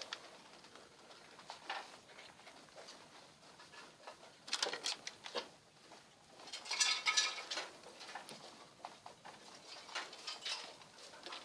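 Rustling and crackling of rabbit fur and straw in a nest box as a hand works through the lining, in scattered bursts, the loudest about five and seven seconds in.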